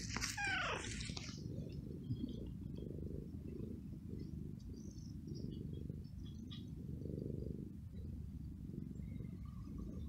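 Young tabby cat meowing once at the start, then purring steadily while being stroked, the purr swelling and easing with its breaths.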